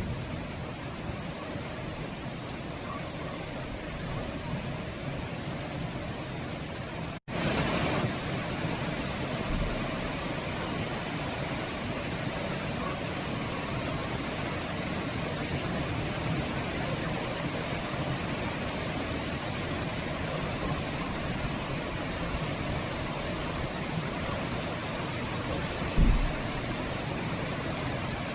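Steady heavy rain hissing. It breaks off for an instant about seven seconds in and resumes a little louder, and there is a brief low thump near the end.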